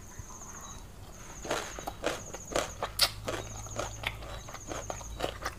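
Close-miked chewing of a mouthful of papaya salad with rice noodles: a run of short, wet clicks and smacks, several a second, starting about a second and a half in.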